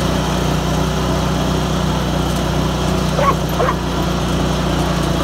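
John Deere garden tractor's engine running steadily as the tractor drives along. About three seconds in, two short high yelps sound over it.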